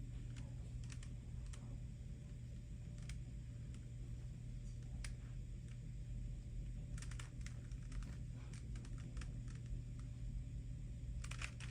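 A Rubik's Cube being turned by hand: scattered short plastic clicks from its layers, a few at a time, with busier runs about seven seconds in and near the end, over a steady low hum.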